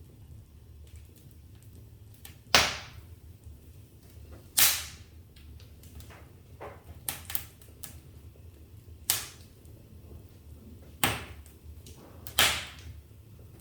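Wood fire in a fireplace crackling, with five loud, sharp pops and several smaller snaps over a low, steady rumble.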